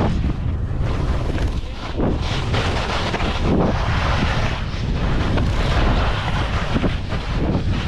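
Wind buffeting the microphone over the hiss and scrape of skis carving turns on groomed snow. The scraping swells and fades with each turn.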